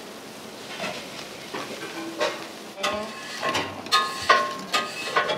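Water boiling in a large aluminium pot, with long-handled mesh noodle strainers clinking against the metal. A run of sharp metallic clinks with a short ring starts about two seconds in.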